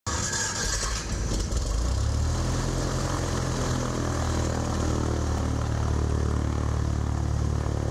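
Light aircraft piston engine running steadily. It is a little rough for the first second or so, then settles into an even, low drone about two seconds in.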